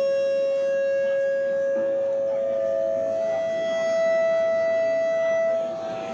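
Sustained drone of held electronic tones from a band's amplified rig, like steady feedback; the main pitch steps up slightly about two seconds in, and the drone drops away near the end.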